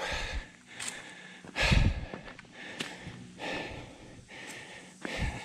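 A person's heavy breathing, out of breath from climbing the rocks: several loud breaths one to two seconds apart. The loudest comes about two seconds in, with a low thump.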